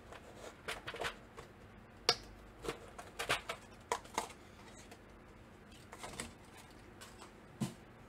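Clear plastic keycap trays being handled and set down, with the keycaps rattling in them: a scattered run of light plastic clicks and knocks, the sharpest about two seconds in.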